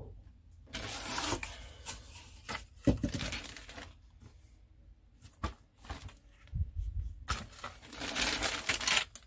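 Clear plastic bags around a model kit's parts trees and instruction sheet crinkling as they are handled, in two stretches, about a second in and again near the end, with a few light knocks between.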